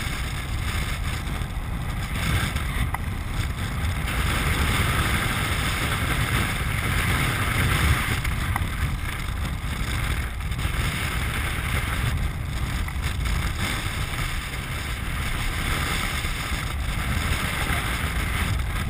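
Wind rushing over the microphone of a camera mounted on a land yacht's mast while the craft sails. A steady low buffeting runs under a hiss that swells for a few seconds in the middle.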